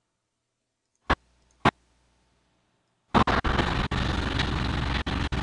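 Two sharp mouse clicks, then about three seconds in the previewed roadside clip's own outdoor audio starts playing: a loud, steady rushing noise, broken by several short dropouts as the preview is scrubbed.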